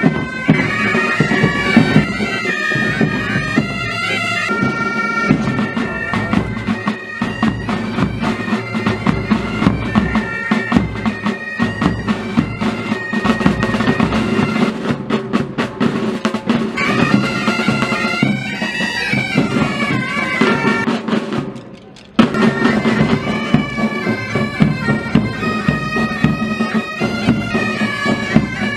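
Pipe band playing: bagpipes sounding a melody over their steady drone, with snare and bass drums beating under them. The sound drops away briefly about three-quarters of the way through and comes back abruptly.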